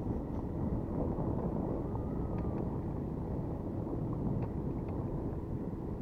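Strong wind buffeting the microphone in a steady, rumbling rush over choppy river water.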